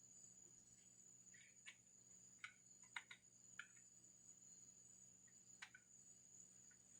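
Near silence, with a few faint short ticks or chirps scattered through it.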